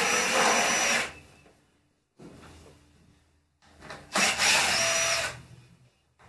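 Cordless drill-driver running in two short bursts of about a second each, the first at the start and the second about four seconds in, backing out bolts on the motorcycle's bodywork. Each burst has a steady high motor whine.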